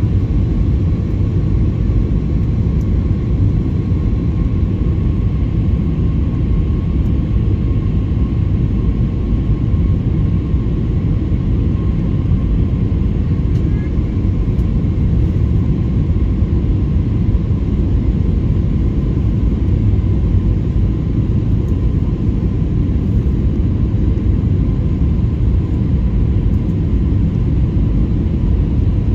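Jet airliner cabin noise during descent: a steady low rumble of engines and rushing air heard through the cabin, with a faint steady whine over it.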